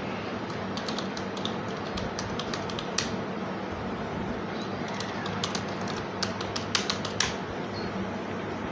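Computer keyboard keystrokes clicking in two short runs, from about half a second to three seconds in and again from about five to seven seconds in, as a password is typed. A steady low hum runs underneath.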